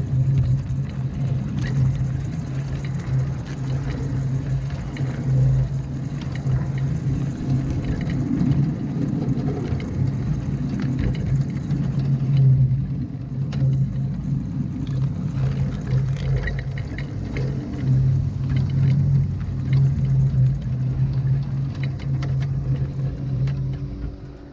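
A steady low mechanical hum with rumble and scattered faint clicks, fading out at the very end.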